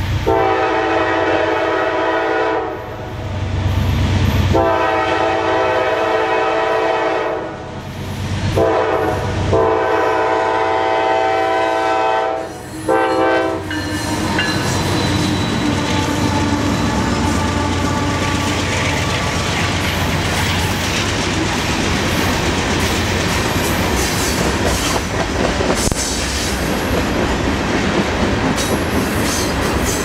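Norfolk Southern GE Dash 9 locomotive's Nathan Airchime K5LA horn sounding the grade-crossing signal, long, long, short, long, a multi-note chord. From about 14 seconds in, the locomotives and freight cars pass close by: a steady loud rumble with the clickety-clack of wheels over the rail joints.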